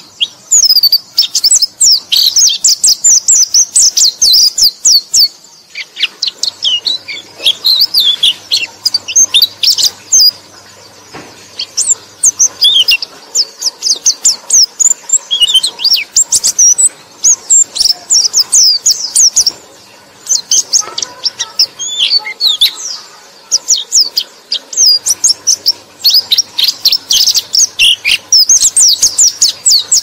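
White-eye (pleci) singing: fast strings of high, thin chirps and twittering warbles in long bursts, broken by a few short pauses.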